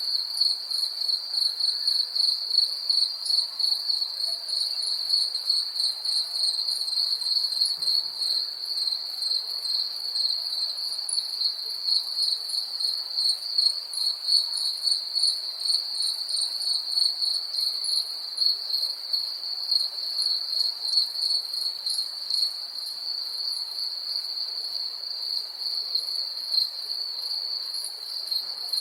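Crickets chirping: a continuous high-pitched trill, with a second, higher, rapidly pulsing chirp layered above it.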